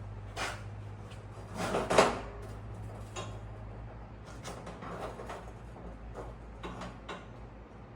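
Things being handled in a shop: scattered knocks and clicks, with a louder clatter about two seconds in, over a steady low hum.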